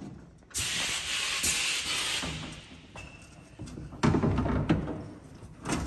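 Compressed air hissing at a pneumatic Huck gun on its air line as the gun is handled, followed by two louder rattling bursts about four seconds in and near the end.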